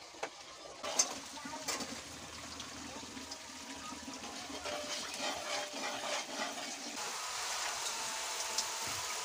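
Food frying in a large aluminium wok while a metal ladle scrapes and clinks against the pan as garlic, then sliced hotdogs and meat, are stirred. The sizzle grows louder toward the end.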